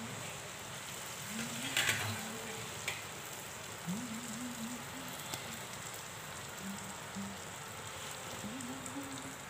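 Malpua deep-frying in hot oil in a wok: a steady bubbling sizzle, with a couple of brief knocks about two and three seconds in.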